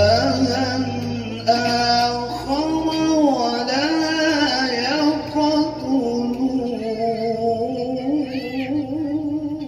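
A man reciting the Qur'an in melodic tilawah style, drawing out one long, ornamented phrase whose pitch turns up and down. The phrase ends right at the close.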